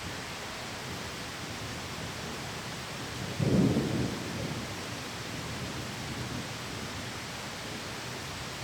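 Steady heavy rain, with one low clap of thunder about three and a half seconds in that rumbles away over a second or so.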